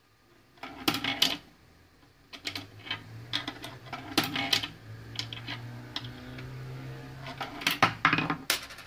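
Clicks and metallic rattles of a coin being fed into an electronic coin acceptor, with a steady low hum for several seconds in the middle and a quick cluster of clicks near the end.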